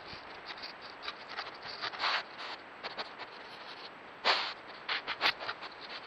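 A wild animal's fur brushing and scraping against the trail camera right at its microphone: irregular rustling scrapes and clicks, the loudest about four seconds in.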